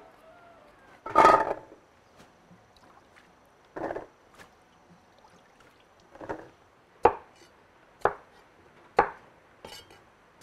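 Kitchen knife chopping on a cutting board: a louder clatter about a second in, a few scattered knocks, then sharp single chops about once a second in the second half.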